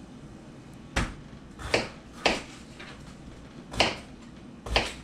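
Kitchen knife chopping a potato into chunks on a cutting board: five sharp knocks at uneven intervals, roughly a second apart.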